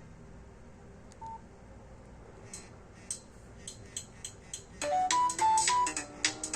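Nokia C2-01 phone speaker: a single short beep about a second in, then a polyphonic Nokia ringtone begins, with light percussive ticks from about two and a half seconds and a melody of short high notes over backing chords joining near the five-second mark.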